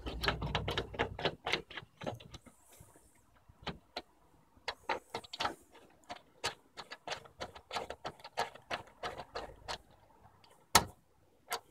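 Small metallic clicks and taps of a chrome Brighton sash window fastener being worked by hand: the knurled nut turned on its threaded bar, then a key inserted into the cap and turned. One sharper click near the end.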